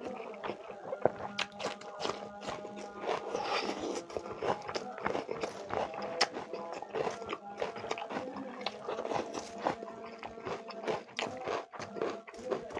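Close-up eating sounds: chewing, biting and wet smacking clicks while eating chicken curry and rice, with music playing in the background.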